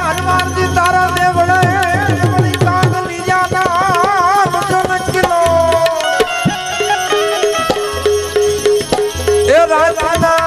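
Gujarati devotional bhajan music: tabla drumming under a held, wavering melody line. The drumming is dense for the first few seconds, then thins out while the melody carries on.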